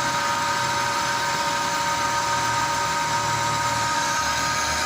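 Metal lathe running steadily, its motor and gearing giving a constant whine of several steady tones over a noisy hum.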